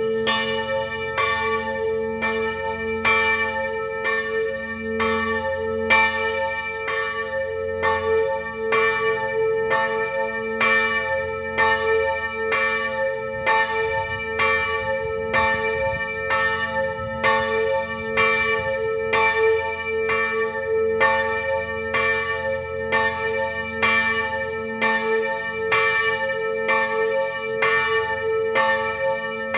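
Church bells pealing, struck about once a second, each stroke ringing on into the next over a steady low hum.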